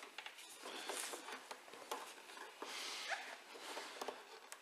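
Faint rustling and a few light clicks as hands work a small socket ratchet on a hose clip among the plastic and rubber hoses of a washing machine.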